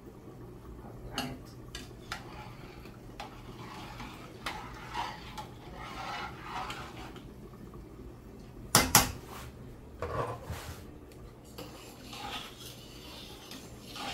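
Metal spoon stirring and scraping in an aluminium pot of rice and peas, with scattered clinks against the pot. Two sharp knocks just past the middle are the loudest sounds.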